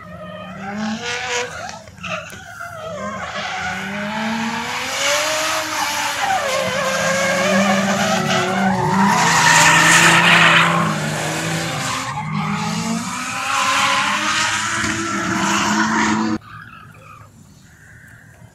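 Drift car engine revving with its tyres screeching as it slides sideways through a corner, loudest about ten seconds in. The sound drops away suddenly near the end.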